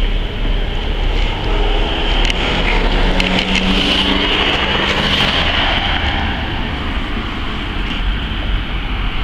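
Street traffic noise with a low rumble, swelling a few seconds in as a vehicle's engine passes by, then easing off.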